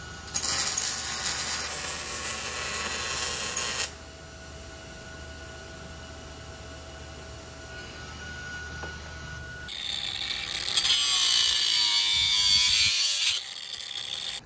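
Handheld power tool working metal in two bursts of about four seconds, each starting and stopping abruptly, with a quieter steady hum between them.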